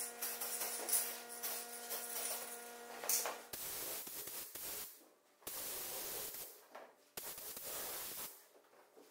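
Background music with a steady drone and light percussion for the first few seconds. Then a paint spray gun hisses with compressed air in about four bursts of roughly a second each, cutting on and off sharply as the trigger is pulled for each pass of base coat.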